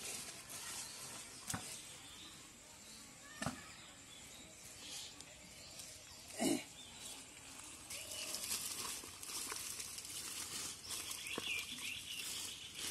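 Faint rustling of water-hyacinth stems and squelching, wet mud as plants are pulled up by hand, growing denser about eight seconds in. A few scattered taps come before it, and there is one brief louder sound about six and a half seconds in.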